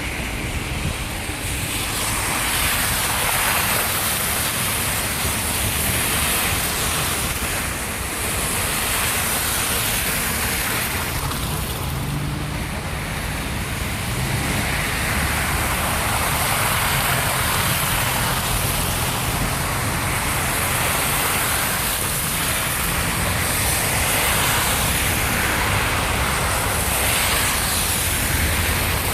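Blizzard wind blowing: a steady rushing noise that swells and eases in slow gusts.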